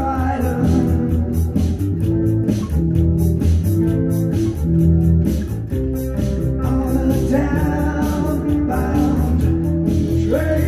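Rock song with a singing voice over electric bass guitar and guitar, with a steady beat.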